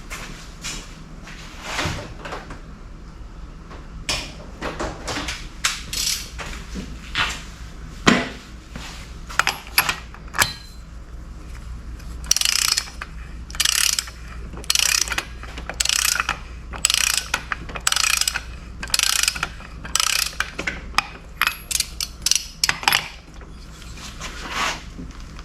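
Hand ratchet wrench being worked back and forth, clicking in short strokes: scattered at first, then a steady run of close to two strokes a second through the second half.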